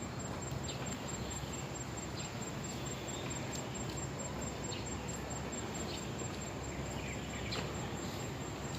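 Eurasian tree sparrows giving short chirps now and then over steady background noise, with a continuous high-pitched tone throughout.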